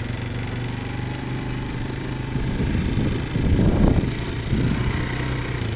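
Small motorcycle engine running steadily while riding on beach sand, with a louder rush of noise about three seconds in.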